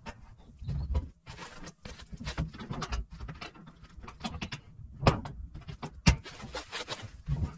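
Clunks, taps and scraping from a classic Mini's door being manhandled onto its hinges, with two sharp knocks about five and six seconds in.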